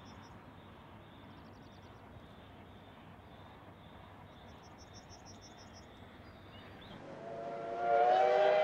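Steam locomotive whistle sounding a long, loud blast near the end, rising slightly in pitch as it starts. Before it comes faint open-air ambience with insects chirping in short pulsed trills.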